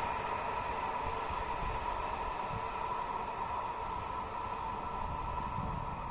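Diesel-electric-hauled passenger train rolling away into the distance: a steady rail rumble with a faint steady tone, slowly fading. Short, faint, high falling chirps come every second or so.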